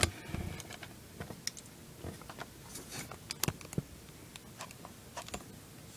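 Faint, scattered small clicks and taps, the sharpest about halfway through, from a phone being handled and set into a plastic clamp mount.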